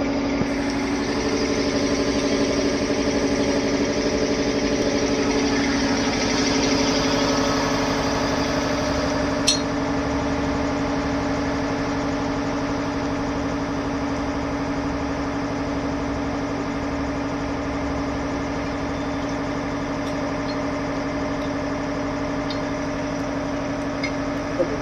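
A machine or engine runs steadily with an even, unchanging hum. A single sharp metallic click comes about nine and a half seconds in.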